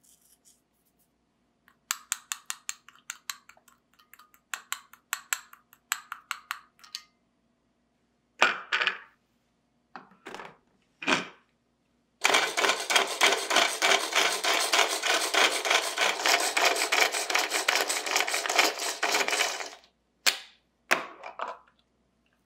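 A manual pull-cord food chopper mincing fresh ginger: its blades whir and clatter in the plastic bowl in a dense rattle for about seven seconds, the loudest part. Before it comes a run of quick light clinks of a spoon stirring the dressing in a glass cup, and a few knocks as the chopper is handled; near the end two short clatters as the lid comes off.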